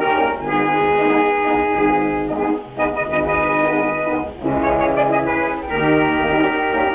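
Background music: a brass band playing, with trumpets and trombones holding notes in phrases of a second or two.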